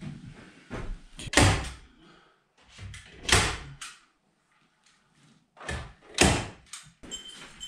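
Several dull knocks and thumps, with a near-silent second or so in the middle, from work in the rafters fitting Provent roof ventilation baffles.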